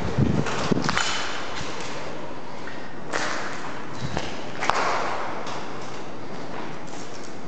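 Footsteps, with knocks and scuffs from handling a handheld camera, over a steady hiss: a cluster of thumps in the first second, then a couple of short scuffing bursts a few seconds later.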